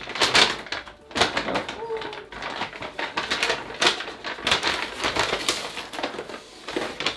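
Brown paper bag being unrolled and pulled open, crinkling and rustling in a quick run of crackles.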